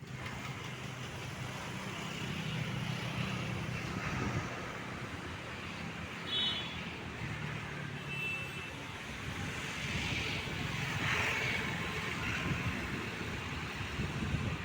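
An engine running steadily under a haze of outdoor noise, with two short high-pitched tones about six and eight seconds in.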